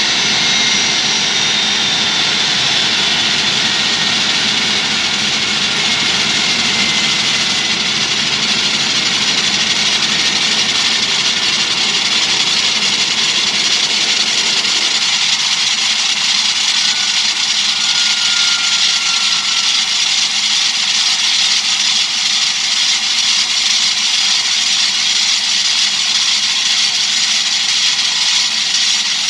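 Airliner's turbofan engine running with a steady loud roar and a high whine, with faint whining tones that slowly fall in pitch. About halfway the lower rumble drops away suddenly while the roar and whine carry on.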